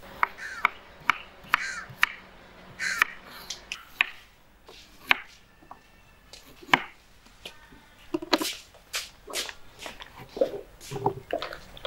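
Kitchen knife slicing carrots on a wooden chopping board: irregular sharp knocks as the blade strikes the board, roughly one or two a second.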